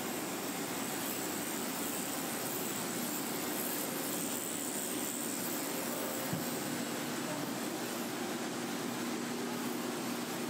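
Corded electric dog-grooming clippers running with a steady hum as they shave a schnauzer's matted coat.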